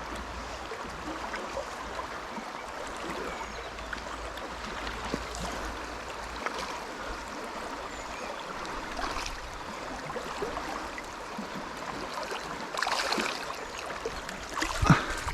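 Fast river water rushing over a stony riffle, a steady hiss, with a couple of brief louder sounds near the end.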